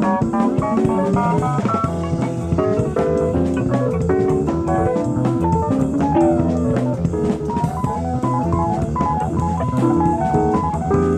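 Live jazz band playing busy guitar lines over a drum kit, heard as playback of a cassette tape recorded off an FM radio broadcast.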